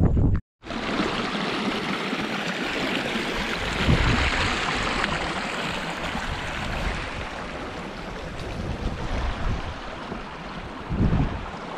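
Steady rushing of flowing water, swelling slightly about four seconds in and easing toward the end, after a brief drop-out about half a second in.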